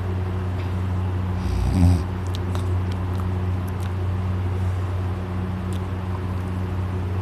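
A man snoring in deep sleep: one short, loud snore about a second and a half in, over a steady low hum.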